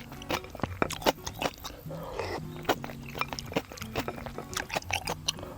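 Close-up eating sounds: ramen noodles slurped and chewed, with many quick sharp clicks, over light background music with a repeating bass line.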